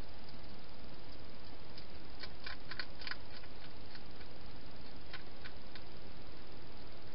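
A hedgehog eating from a bowl, crunching food: scattered sharp clicks, with a quick cluster about two and a half to three seconds in and a few more near the end, over a steady hiss.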